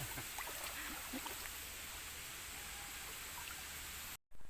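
Steady outdoor ambience of a small river: flowing water with a few faint ticks and a faint high steady tone above it, cut off abruptly near the end.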